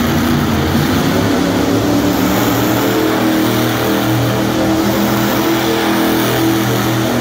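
Monster truck engine running loud and steady under throttle while the truck spins donuts, its pitch holding level throughout.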